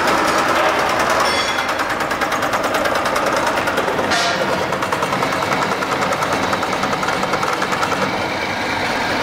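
Workshop machinery running with a fast, steady rattle of evenly spaced pulses, with a short hiss about four seconds in.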